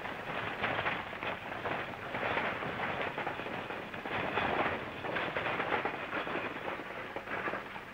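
Horse-drawn stagecoach on the move: a dense clatter of hooves and rattling wheels and harness, surging irregularly, then easing off near the end as the coach pulls up.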